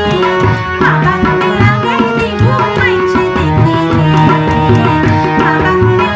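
A woman singing a Chittagonian regional folk song with a gliding, ornamented melody, over tabla strokes and a steady melodic instrumental accompaniment.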